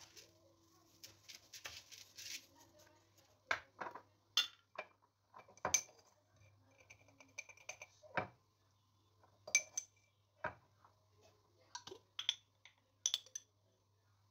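Metal spoon stirring and knocking in a plastic colander of rice and red lentils: irregular clinks and short scrapes, over a faint steady low hum.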